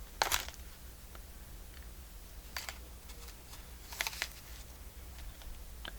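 A few short, soft rustles and brushes as thick rayon thread is pulled through the holes and the journal is handled, over a faint steady hum.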